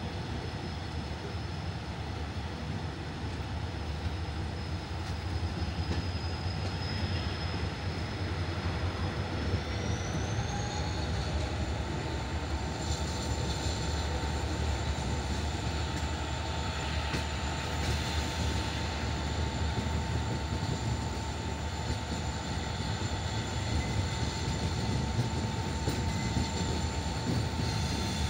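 Karnataka Sampark Kranti Express pulling out and gathering speed, heard from aboard a coach: a steady low rumble of the running train on the track. A thin high whine steps up in pitch about ten seconds in.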